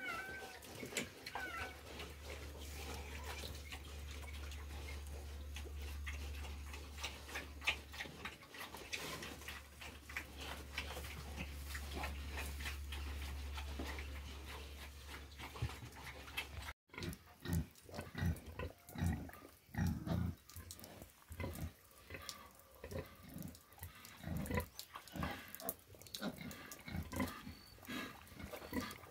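Pigs snuffling and grunting on a concrete sty floor, with many small clicks, over a steady low hum. About halfway through it changes to a run of short, low grunts with pauses between them.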